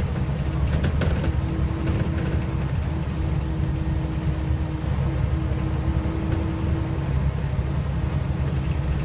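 Scania L94UA bus's five-cylinder diesel engine and drivetrain heard from inside the passenger cabin while under way: a steady low rumble with a constant hum above it that drops out briefly a few times, and a few light rattles about a second in.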